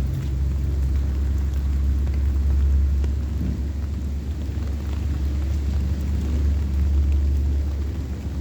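Heavy rain falling, with faint scattered drop ticks over a deep continuous rumble that swells slightly about three seconds in and again near the end.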